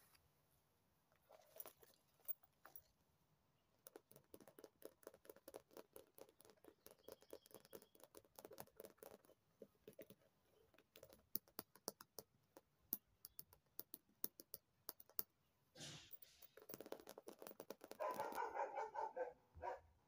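Long fingernails tapping and scratching on a white quilted handbag, many quick light ticks, with a louder stretch of rubbing and scratching near the end.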